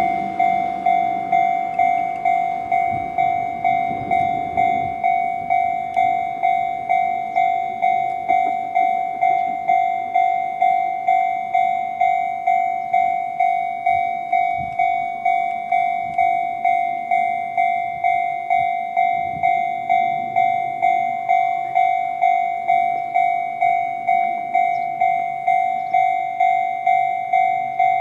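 Japanese level-crossing electronic warning bell ringing, the Chichibu Railway's own crossing-bell tone: an even 'kan-kan' of about two strikes a second, each a ringing tone that fades quickly.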